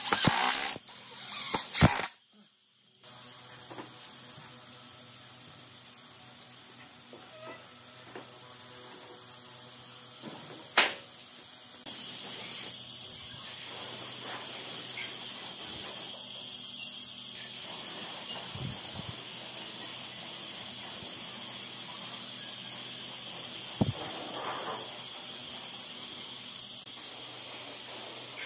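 A power drill drives a screw into wood in two short bursts at the start. About twelve seconds in, after a single sharp click, a compressed-air spray gun starts a steady high hiss as it sprays finish and keeps going.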